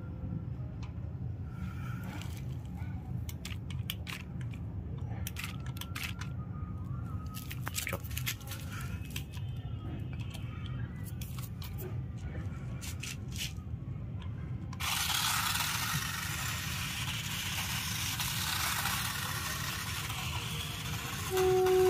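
Toy remote-control monster truck being handled and run: scattered clicks and scrapes, then, about fifteen seconds in, a steady hiss as its motor and wheels run, over a low hum. Right at the end a loud steady horn-like tone starts.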